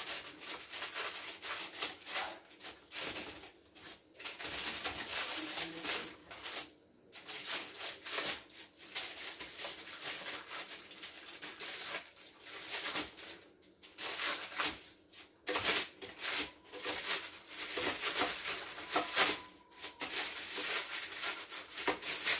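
Aluminium foil crinkling and metal kitchen tongs clicking and scraping against it, on and off, as baked potato wedges that have stuck to the foil are pried loose.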